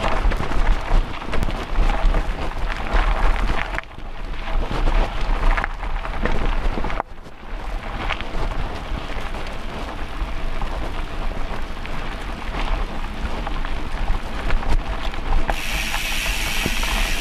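Mountain bike rolling over a rough dirt trail: continuous rattling tyre-and-trail rumble with wind buffeting on a handlebar-mounted camera. A brighter hiss joins near the end.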